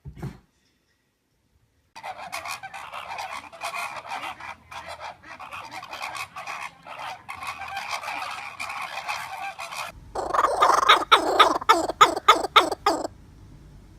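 Geese honking in a rapid, continuous run of calls. Louder, sharper honks come at about four a second from about ten seconds in, then stop shortly before the end.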